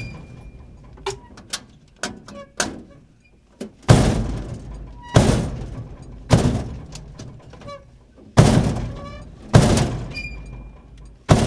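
Dumpster door slamming shut again and again: a few light knocks in the first three seconds, then six heavy slams one to two seconds apart, each ringing out for about a second.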